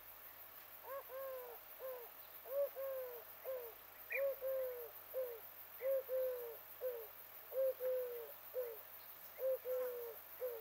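A dove cooing: a low three-note phrase, the middle note the longest, repeated six times at a steady pace.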